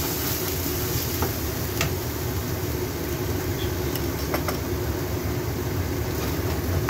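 Minced beef and garlic frying in a nonstick wok over a steady low rumble, with a few light clicks and scrapes of a plastic spatula stirring against the pan.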